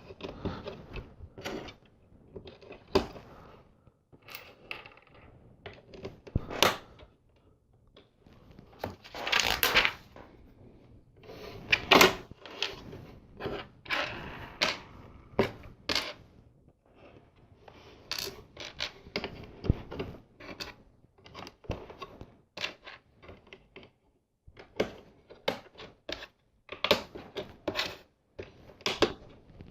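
LEGO plastic pieces clicking and clattering as they are handled and snapped together, in irregular sharp clicks.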